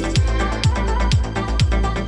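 Background electronic dance music with a steady kick drum about two beats a second and a ticking hi-hat over it.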